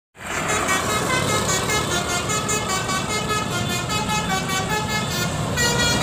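Basuri telolet bus horn playing a quick melody of short pitched toots, over a steady low rumble.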